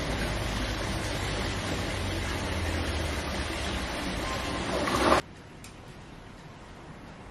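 Ocean surf with wind noise on the microphone, a steady rushing that swells and then cuts off suddenly about five seconds in, leaving only faint room tone.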